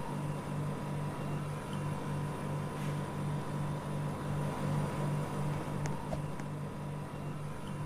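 Apartment air conditioner running: a low hum that pulses evenly, about two to three times a second, with a faint steady high tone over an even hiss of moving air.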